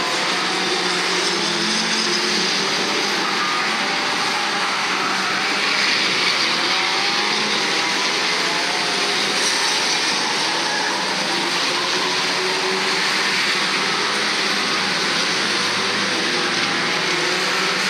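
The engines of several old stock cars racing around an oval, a steady blend of engine noise with pitches rising and falling as the cars accelerate and ease off.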